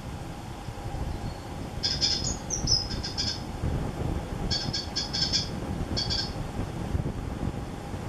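Blue tit nestlings begging with thin, high cheeps as an adult feeds them in the nestbox. The cheeps come in quick runs, about two seconds in, around four and a half seconds and again near six seconds, over a steady low rumble.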